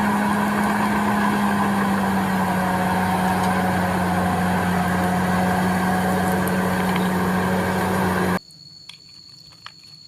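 A small motor running steadily with a low hum and a hiss, cutting off suddenly about eight seconds in.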